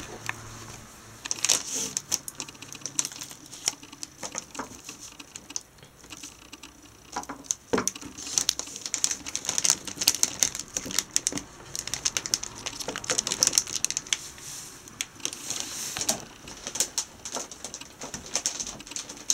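Irregular clicks, knocks and rustles of a desktop PC case being moved and set down on a chipboard shelf, with hand-held handling noise.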